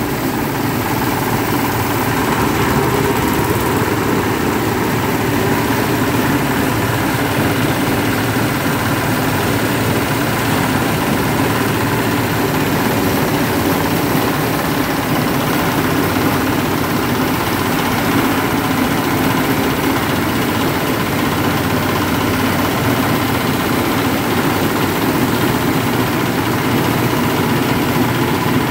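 Several small single-cylinder diesel engines running together at a steady speed, each driving a grass chopper as dry grass and straw are fed in and shredded. A dense, continuous machine noise with no breaks.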